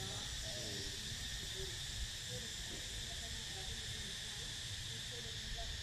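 Steady, high-pitched drone of an insect chorus, with faint voices in the background.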